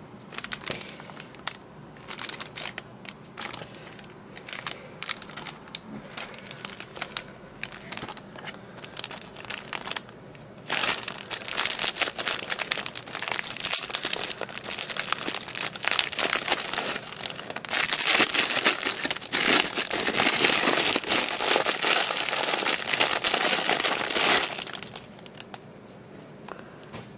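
Clear cellophane gift wrapping crinkling as hands handle it and pull it open. Scattered crinkles at first, then about ten seconds in the crinkling turns dense and louder while the wrapping is worked off, easing off a couple of seconds before the end.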